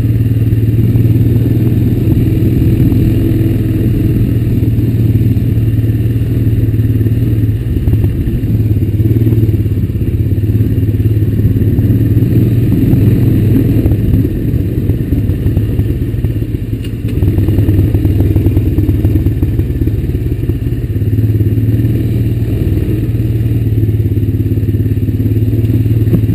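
A 2004 Honda Recon 250 ATV's single-cylinder four-stroke engine running steadily as the quad rides along a dirt trail. The engine note eases off briefly twice, about a third and two-thirds of the way through, then picks back up.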